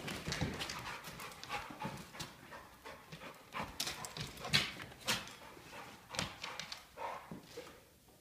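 A dog's paws and claws clicking and scuffling irregularly on a hard floor as it jumps about in play, dying away near the end.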